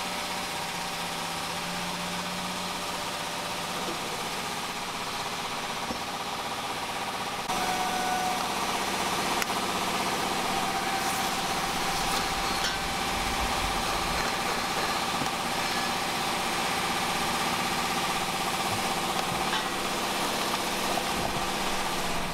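Steady mechanical hum of a running machine, made of several held tones. It jumps up abruptly in level about seven and a half seconds in, and a few faint clicks sound a little later.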